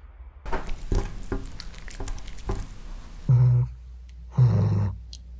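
Rustling and pattering of a Pomeranian running through tall grass. Then, about three seconds in, the Pomeranian gives two short, low, loud vocal sounds, about a second apart.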